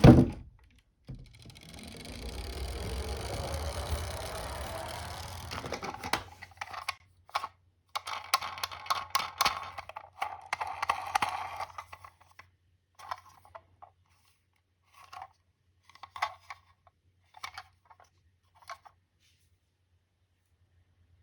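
Die-cast toy cars clicking and clattering against each other as they are handled. A knock and a few seconds of steady rushing noise come first, then a dense run of rapid clicks that thins out into scattered clicks and stops.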